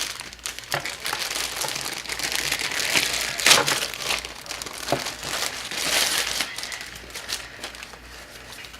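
Plastic packaging crinkling and rustling as it is handled, with a sharp, louder crackle about three and a half seconds in; the rustling dies down near the end.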